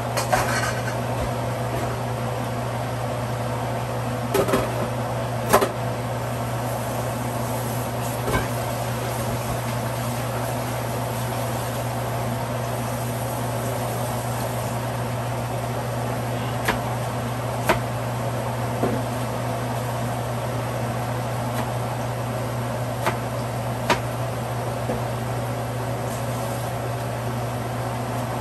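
Steady mechanical hum with an even hiss, like a kitchen fan or appliance motor running, with a dozen or so light knocks and clacks from vegetables and utensils being handled at the sink.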